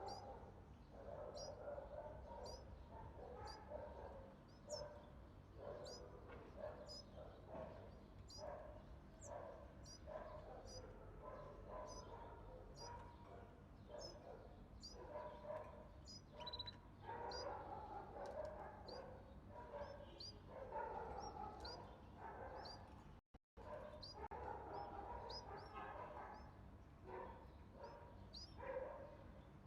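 Canary nestlings begging for food: repeated short, high downward chirps about once a second over a lower, pulsing chatter, with a brief break about two-thirds of the way through.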